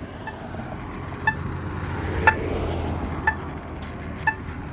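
Polara EN2 crosswalk pushbutton sounding its locator tone, a short pitched tick about once a second, five ticks, through a speaker judged to be on its way out. A passing vehicle rumbles underneath, swelling and easing off mid-way.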